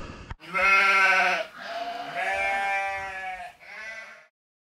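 Three sheep bleats, a long one, a longer one and a short last one, laid in as a clean sound effect. The wind and surf noise before them cuts off suddenly.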